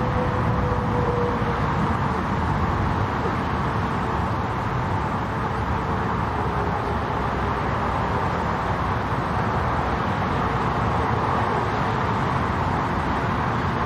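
Jet airliner engines running: a steady rush with a faint whine that slides slightly lower in pitch over the first few seconds.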